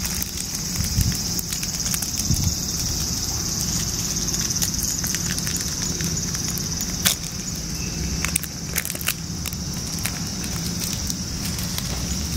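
Steady high drone of summer cicadas, with dry leaves crackling and snapping close by and a sharper snap about seven seconds in, over a low steady rumble.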